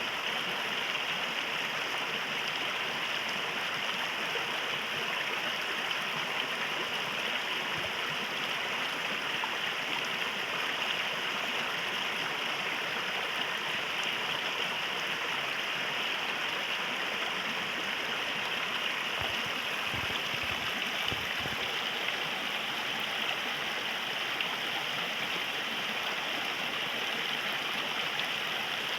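River water flowing steadily, a continuous rushing and gurgling.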